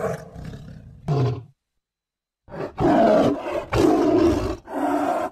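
Big cat roaring, a tiger-roar sound effect: one roar and a short growl, a pause, then three loud roars in quick succession.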